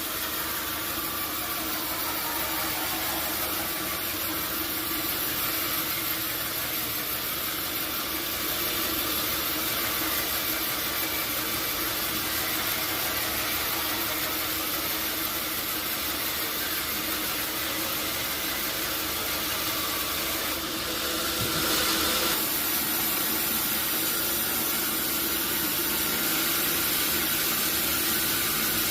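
Sawmill machinery running steadily, a continuous mechanical drone with hiss. About twenty-one seconds in there is a brief louder rush of noise, after which it runs a little louder.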